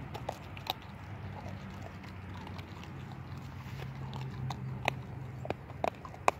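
German Shepherd puppy chewing a whole raw fish: irregular sharp cracks and crunches as its teeth work through the fish, the loudest few near the end. A low steady hum runs underneath.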